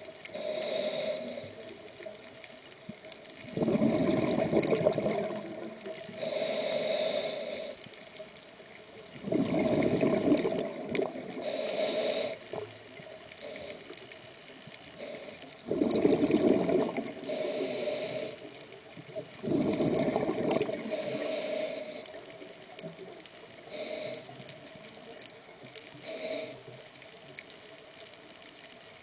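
Scuba diver breathing through a regulator underwater: a hissing inhale followed by a bubbly gush of exhaled air, repeating about every five to six seconds, with the last few breaths fainter.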